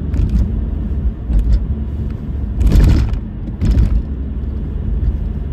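Road noise inside a moving car: a steady low rumble of tyres and engine, with two short, louder rushing bursts around the middle.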